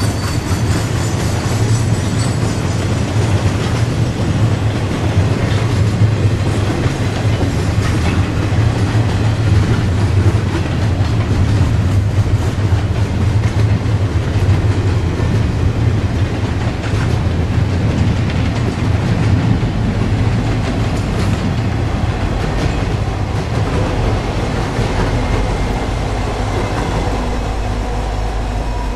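Freight train of double-stack intermodal well cars rolling past, the steady rumble of steel wheels on the rails. It eases off slightly over the last several seconds as the end of the train goes by.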